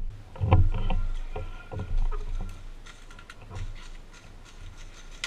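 Handling noise on a rifle-mounted camera as the airsoft sniper rifle is shifted: low rumbling knocks and rustling, strongest in the first two seconds and fading to faint clicks.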